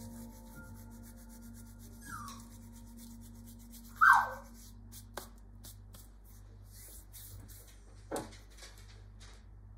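Hands sprinkling dried herbs over tortilla pizzas on a parchment-lined baking tray: light rustling and rubbing with small scattered ticks. A short, falling squeak about four seconds in is the loudest sound.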